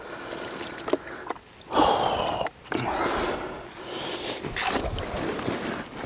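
Water being sloshed and poured over a large mirror carp held out of the water, in several wet, splashy bursts with short gaps between them, and a few sharp slaps or knocks from handling the fish.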